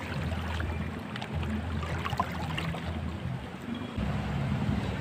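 River water rushing and splashing, with a low steady rumble underneath.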